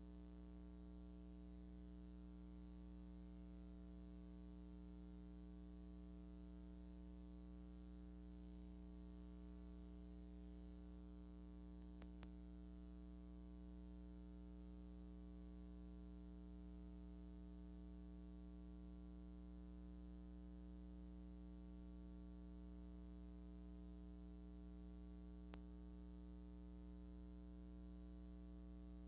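Near silence with a faint, steady low electrical hum carrying a buzzy stack of overtones, and two faint clicks, about 12 and 25 seconds in.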